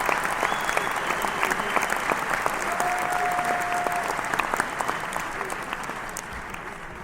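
Large crowd cheering and clapping, with one whistle held for about a second near the middle; the applause starts to die away near the end.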